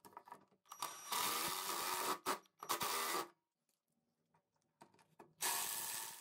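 Ridgid 12-volt cordless driver spinning screws into wood in two bursts: a run of about two seconds with a brief break in it, then a shorter run of under a second near the end.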